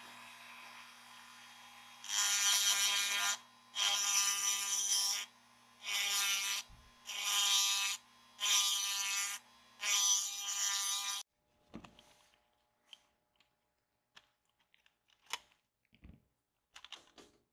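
Handheld rotary tool with a pink grinding stone, run in about five short bursts of a second or so each, grinding at the hub of a toy tractor's small metal wheel. After that, a few light clicks and knocks from the toy's parts being handled.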